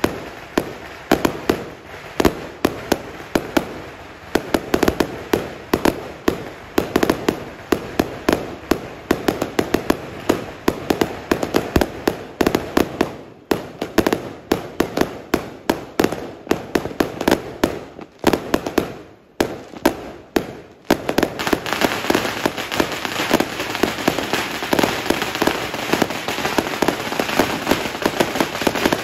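Aerial fireworks bursting overhead in a rapid series of sharp bangs, about two or three a second, with brief pauses twice. From about two-thirds of the way in they give way to a dense, continuous crackling dotted with small pops.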